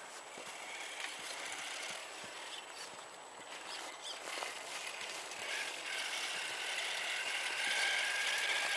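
Radio-controlled crawler truck's small electric motor and gears whining as it drives over snow, the whine growing louder in the second half as the truck comes closer.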